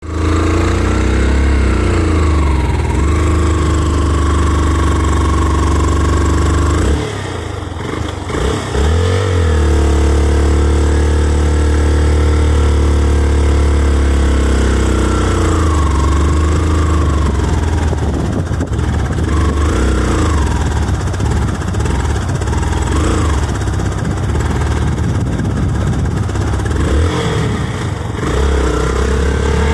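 Engine of the moving road vehicle carrying the recorder, running steadily with its pitch rising and falling as the revs change. It eases off briefly about a quarter of the way in, then picks up again.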